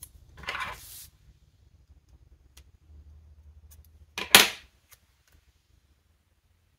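A short papery rustle of sticker paper being handled, a few faint ticks, then a sharp clack about four seconds in as metal sticker tweezers are set down on the hard tabletop.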